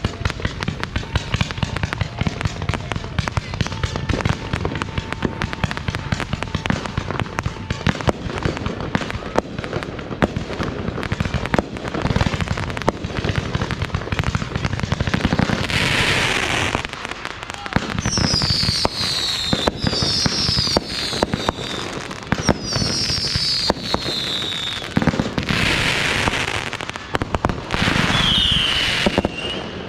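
Fireworks going off: a dense, continuous crackling and popping, with two loud hissing bursts, one about halfway through and one near the end, and several high whistles that fall in pitch in the second half.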